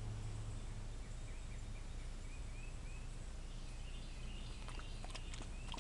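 Quiet outdoor ambience with a steady low hum and faint bird chirps, then a scatter of small clicks and light splashes from about four seconds in as a dog paws at the pool water.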